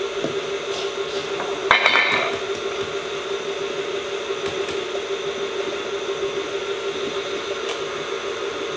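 Stand mixer motor running with a steady hum, and a short clatter of dishes about two seconds in.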